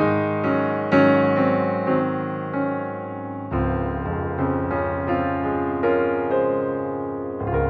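Slow, relaxing piano music: notes struck one after another and left to ring over a sustained low chord, which changes about halfway through.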